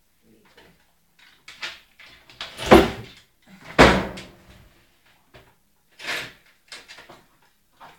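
Handling of a paper envelope and its contents on a wooden table: several short rustles and knocks, the two loudest a little under three and about four seconds in.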